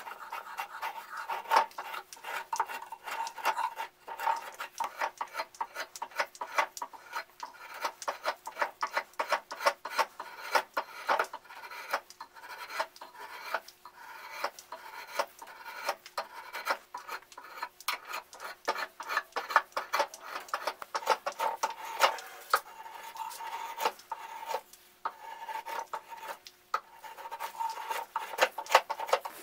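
Drawknife shaving a bitternut hickory handle blank: a quick, uneven run of short scraping strokes as the blade takes off shavings.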